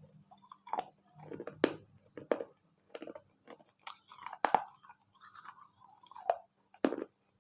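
Close-up crunching and chewing of pieces of wet fired clay (terracotta) from a small clay pot and saucer, with several sharp crunches breaking through the chewing.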